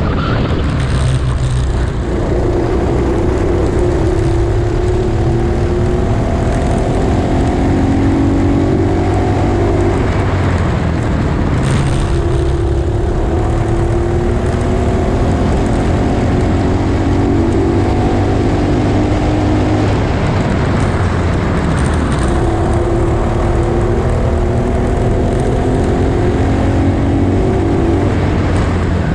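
Honda cadet go-kart engine running at full throttle, its pitch climbing slowly for several seconds and then dropping back, three times over, with a steady low rumble underneath.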